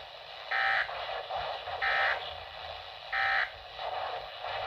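Three short electronic beeps from an emergency alert broadcast, evenly spaced a little over a second apart, over faint radio hiss.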